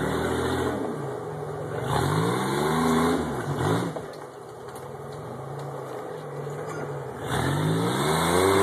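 Rock crawler buggy's engine revving hard in short bursts as it backs up a rock ledge at full throttle: the pitch climbs and drops about two seconds in and again near the end, with lower steady running between.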